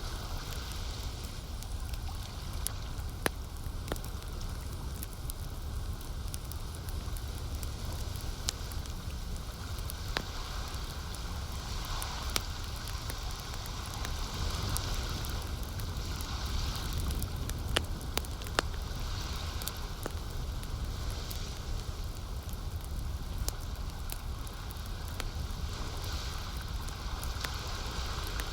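Campfire crackling, with scattered sharp pops over a steady low rumble, and lake water gently lapping in soft swells every couple of seconds.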